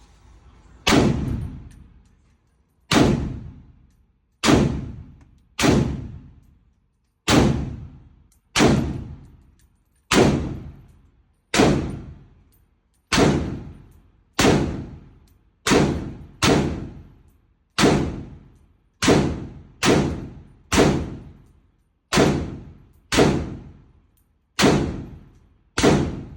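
About twenty single shots from a Sig MCX Spear rifle in 7.62x51mm, fired one at a time at a steady pace of roughly one a second. Each shot trails off over about a second.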